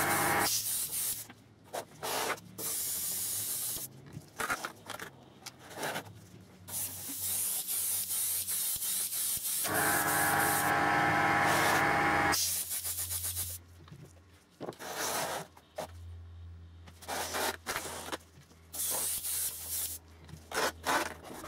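Airbrush spraying matte varnish in on-off bursts of hiss, some a second or so long and the longest several seconds in the middle, with a low steady hum under the later part.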